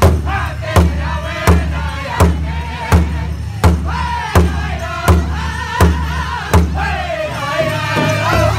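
Powwow drum group: several drummers striking one large drum in unison, a strong beat about every three-quarters of a second, under high-pitched group singing. Near the end the voices hold a long high line.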